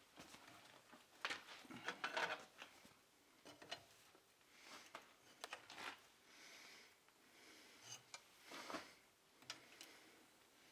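Faint, scattered clicks, taps and short scrapes of hand tools on metal as the forged iron rose is bent and adjusted, with a cluster about a second in and another near the end.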